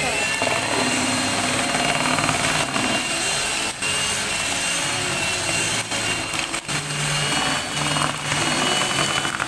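Cordless drill with a paddle mixer running steadily, churning a thick white mix in a plastic bucket, its motor giving a constant high whine.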